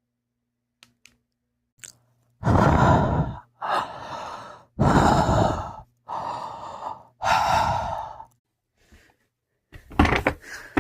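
A person breathing heavily into a microphone as a made-up sound effect: five long, breathy sighs of about a second each, alternately louder and softer, then a few short mouth noises near the end.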